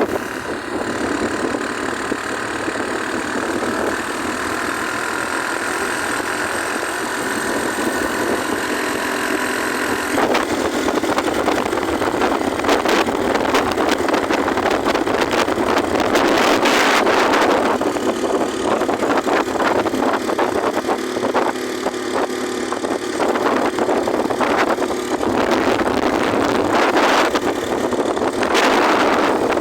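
Motorcycle engine running while riding, with wind rushing over the microphone and louder gusts of wind noise about two-thirds of the way through and near the end.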